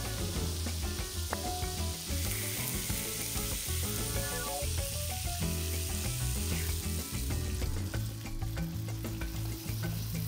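Rice, onion, carrot and tomato sizzling as they fry in a nonstick pan, with scattered clicks and scrapes as a spatula stirs them. Soft background music with held notes and a steady low beat plays underneath.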